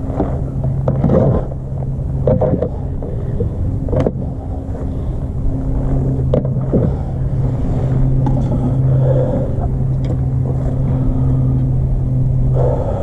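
A steady low engine hum holds without change throughout, with a few sharp knocks about four and six and a half seconds in.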